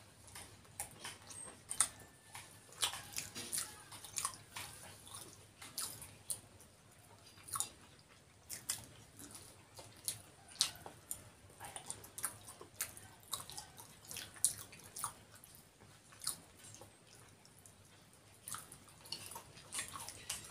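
Two people chewing samosas and kachori with chutney: an irregular, continuous string of small clicks and smacks from their mouths.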